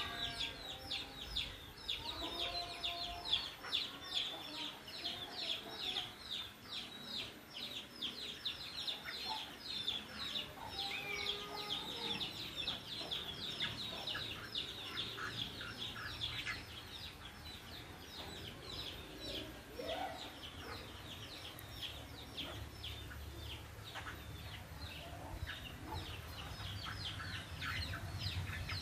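Birds chirping rapidly and without pause, several short high notes a second, with scattered lower clucking calls mixed in. The chirping thins out about two-thirds of the way through and picks up again near the end.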